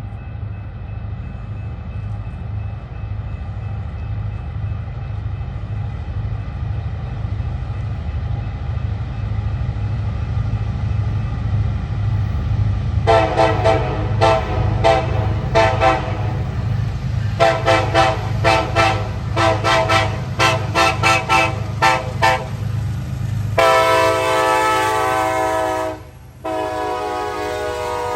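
Norfolk Southern diesel locomotive rumbling on approach, then its multi-note air horn sounded in a string of short toots, first in small groups and then in a fast run, followed by a long blast, a brief break and another long blast near the end.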